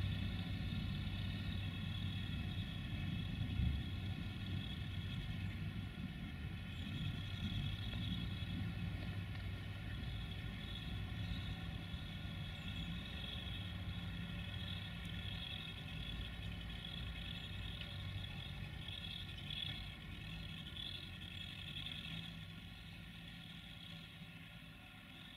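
Siemens Desiro VT642 diesel railcar's underfloor diesel engines running steadily with a hum and a thin whine above it, growing fainter as the unit moves away.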